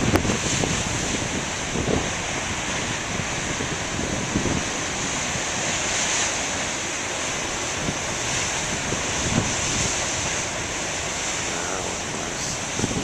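Surf breaking and washing steadily on the shore, with gusts of wind buffeting the microphone.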